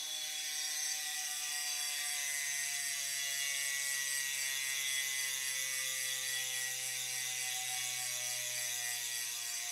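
Rear-hub freewheel ratchet of a Specialized S-Works Tarmac SL8 buzzing steadily while the wheel spins freely. The pawl clicks come so fast they merge into one continuous buzz, and its pitch drops slowly.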